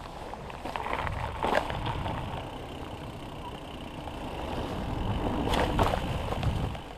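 Mountain bike rolling off over a wooden plank boardwalk and onto a grass path: a rough low rumble from the tyres and the ride, with a few sharp knocks and rattles of the bike about one and a half seconds in and again near six seconds. The rumble grows louder towards the end.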